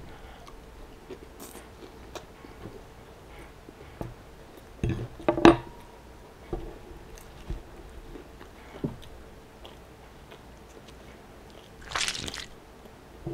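Close-miked chewing and mouth sounds of someone eating a fried chicken tender. About five seconds in, a metal fork knocks down onto the wooden table with a short ring. Near the end, a crackling tear as a glazed fried chicken sandwich is pulled apart by hand.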